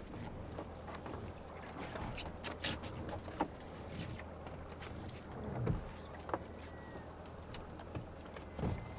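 Lobster pot line being hand-hauled over the side of a small open boat: scattered knocks and rubbing against the hull over water noise and a low steady hum, with a few louder knocks about a third of the way in, past halfway and near the end.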